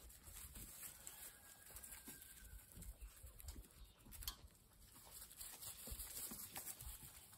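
Golden retriever puppies eating from metal bowls: faint, scattered clicks and taps of feeding at the bowls, with soft thumps and rustling. One sharper click comes about four seconds in.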